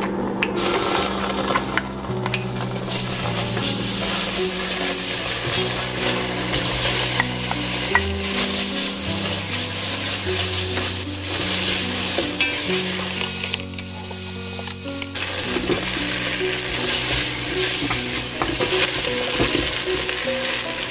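Gochujang, chili flakes and chunks of pork neck sizzling in hot oil in a pot while stirred with a wooden spoon. The sizzle thins briefly about two-thirds of the way through.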